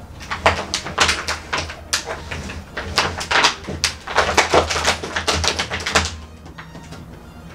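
Serrated kitchen knife sawing through the thin plastic wall of a coin-packed 10-litre water jug, in rapid, irregular rasping strokes that stop about six seconds in.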